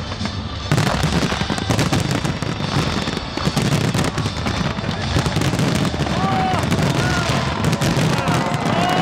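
Large fireworks display going off in a dense, continuous run of crackles and bangs. The firing grows heavier about a second in. Near the end, crowd voices start to cheer over it.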